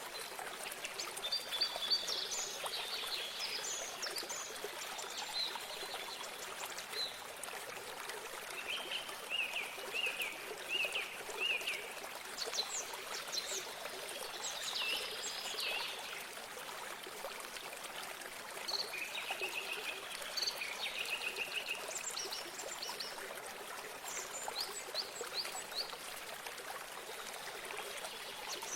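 A stream running steadily, with songbirds singing short phrases of quick repeated notes every few seconds over it.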